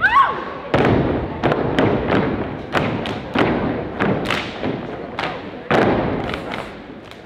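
A step team stepping in unison on a stage: loud stomps and hand claps landing together in an uneven rhythmic pattern, each hit ringing briefly in the hall's echo. A short shouted call rises and falls right at the start.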